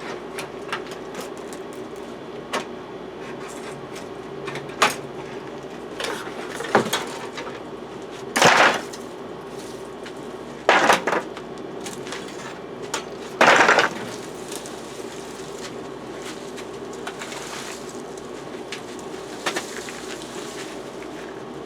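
Digging out a tree root: scattered sharp knocks and three short, harsh scraping strokes a couple of seconds apart, over a steady low hum.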